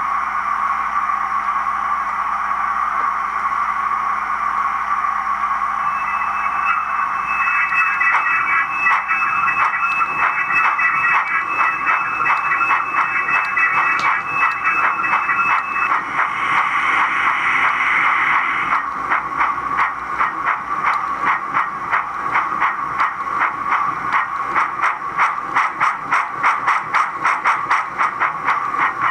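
Model BR 9F steam locomotive's sound decoder playing steam sounds through its small speaker: a steady steam hiss, a thin high squeal held for about ten seconds from around six seconds in, then a regular beat of exhaust chuffs as the locomotive runs.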